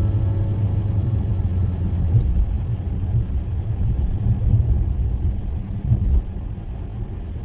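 Car driving on the road: a steady low rumble of tyres and engine heard from inside the cabin, easing a little near the end.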